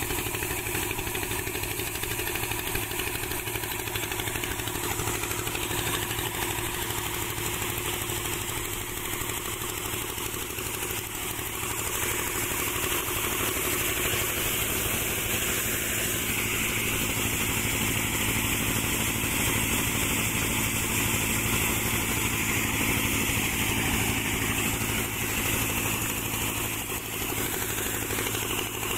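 Prakash multi-crop thresher driven by a small stationary engine, running steadily while threshing crop: an even engine drone with a constant rushing noise from the machine over it.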